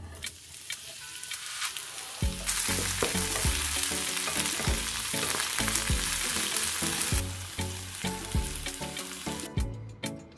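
Sliced onion frying in vegetable oil in a frying pan, sizzling as it is stirred with a wooden spatula. The sizzle swells about two seconds in, eases off later, and cuts off shortly before the end.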